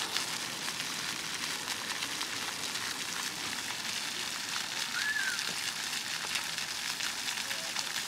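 Splash-pad fountain jets spraying up from the pavement and water spattering onto wet concrete: a steady hiss.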